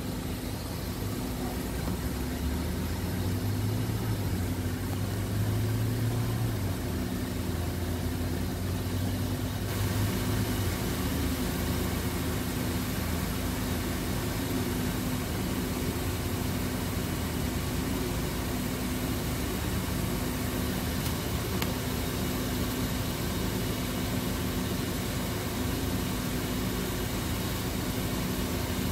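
Car engine idling, heard from inside the car: a steady hum. A deeper, louder low drone swells and falls away during the first ten seconds or so.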